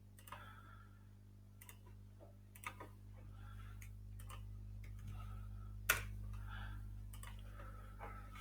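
Computer mouse clicking at irregular intervals, one click louder about six seconds in, over a low steady electrical hum.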